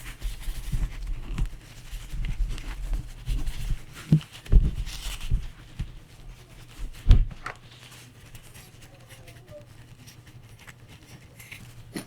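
Handling and rubbing noises from scrubbing a 1911 pistol frame by hand, with a few sharp knocks about four and a half and seven seconds in; after that it goes quieter.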